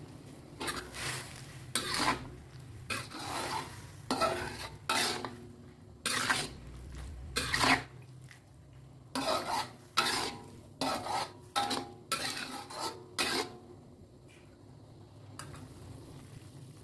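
A cooking utensil stirring food in a pan, scraping against the pan in short strokes about once a second, stopping about 13 seconds in.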